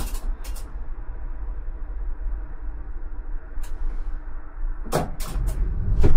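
ČKD Tatra T6A5 tram running, heard from the driver's cab: a steady low rumble with sharp clicks and knocks, a few at the start, one near the middle and a cluster about five seconds in. The rumble grows louder near the end.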